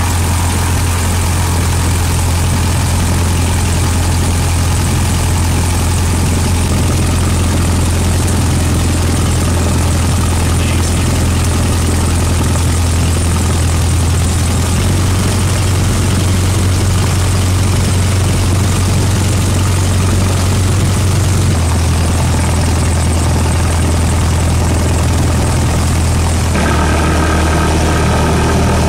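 Cessna 172S's four-cylinder Lycoming engine and propeller heard from inside the cabin, running steadily at low taxi power. The pitch shifts slightly a few times, with a clearer step up near the end.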